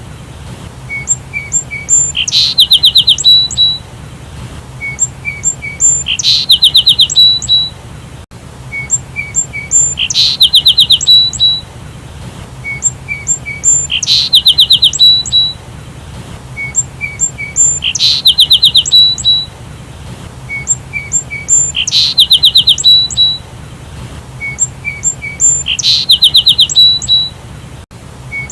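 Sparrow chirping: a quick run of sharp chirps followed by a few softer single chirps, the same phrase repeating about every four seconds.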